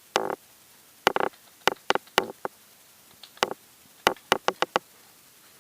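A series of sharp clicks and knocks in irregular clusters, some briefly ringing, like objects being handled and set down.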